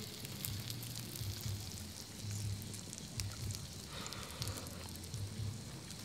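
Charcoal grill crackling faintly: a soft steady hiss with scattered small pops, over a low hum.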